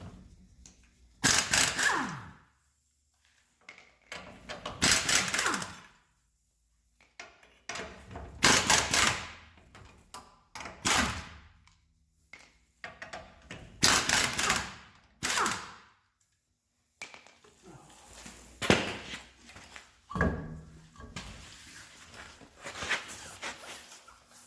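Impact wrench hammering in about eight short bursts with pauses between, loosening the lug nuts to take a front wheel off.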